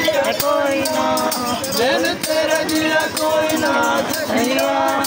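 Singing accompanied by a chimta, the long iron tongs with metal jingles, clashed in a quick steady rhythm of several jingling strikes a second.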